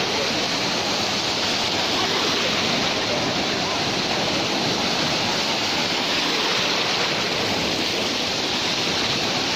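Surf: small waves breaking and washing over the shallows in a steady, even wash of noise.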